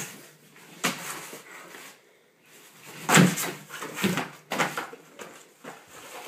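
Great Dane knocking a cardboard box around: a run of sudden thumps and scrapes, the loudest about three seconds in.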